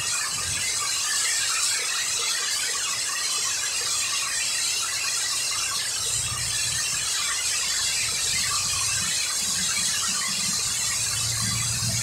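Heavy rain pouring steadily, a constant hiss, with strong wind gusts rumbling low about six seconds in and again near the end.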